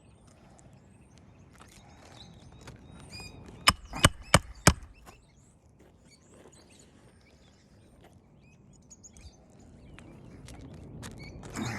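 Four quick hammer blows driving a 1 1/4-inch roofing nail through an asphalt shingle into the roof decking, about a third of a second apart, after a few seconds of faint rustling as the shingle is handled.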